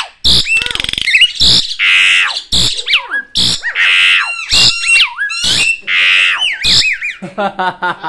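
Caged black-collared starling calling loudly: harsh bursts alternating with looping up-and-down whistles, repeated over and over, with a quick run of stuttering notes near the end.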